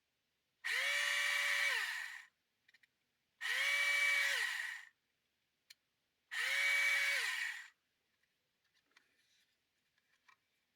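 Small electric motor of a Tamiya Electric Handy Drill run three times in short bursts, each about a second and a half: it spins up to a steady whine and winds down when switched off. Faint small clicks of handling follow.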